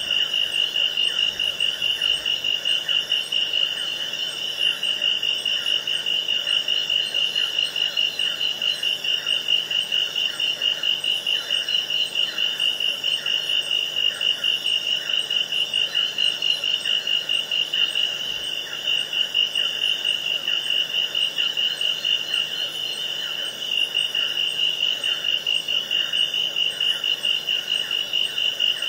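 Rainforest chorus of calling animals: one steady, high-pitched call pulsing in an even rhythm, dipping briefly a few times.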